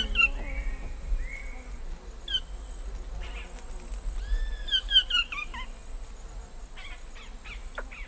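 Yellow-rumped cacique calling at its nest hole: clear, arched whistled notes in scattered groups, with a quick run of them about four to five and a half seconds in. A thin, steady high insect drone runs behind, with distant birds.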